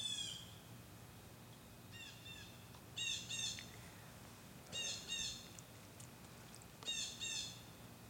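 Blue jays calling: harsh, downward-slurred 'jay' calls, mostly in pairs. One call comes at the start, a fainter pair follows about two seconds in, and louder pairs come about every two seconds after that.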